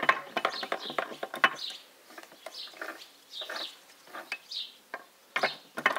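Sharp metallic clicks and knocks in the first second and a half from the selector rod and shift fork being slid by hand in the open U445 tractor gearbox, moving the second/third-gear sliding pinion into and out of engagement, with a few more knocks near the end. In between, a bird chirps several times.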